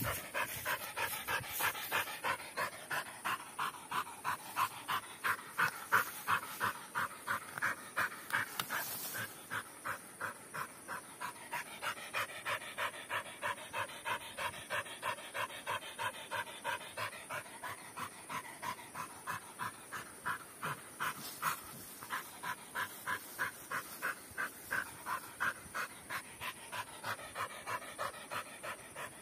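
A dog panting rapidly and rhythmically, about three breaths a second.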